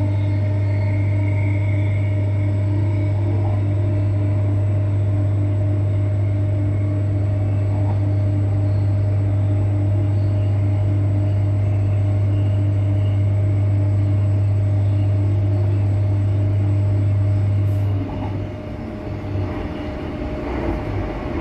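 Running noise of a Queensland Rail EMU electric multiple-unit train heard inside the carriage: a loud, steady low drone with fainter hums above it. About 18 seconds in it drops in level and turns uneven.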